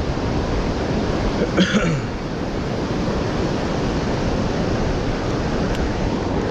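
Steady rush of river water pouring through rapids below a low dam. A brief vocal sound about a second and a half in.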